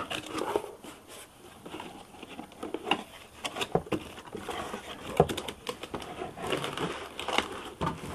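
Cardboard packaging being handled and opened: a printed sleeve sliding off the box, flaps scraping and folding back, and plastic wrap crinkling, as irregular rustles and scrapes mixed with sharp knocks, one right at the start.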